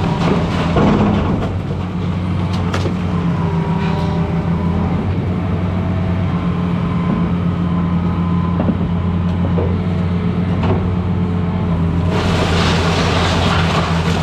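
A 200-size excavator's diesel engine running steadily under load, with scattered knocks and cracks of demolition debris. About twelve seconds in, a louder, rough clattering noise sets in.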